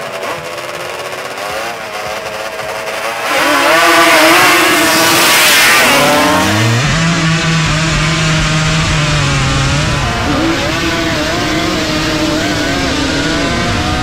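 Engines of two-stroke drag quads revving hard, rising sharply in loudness about three seconds in. A steady held engine note runs for a few seconds behind the other wavering engine notes.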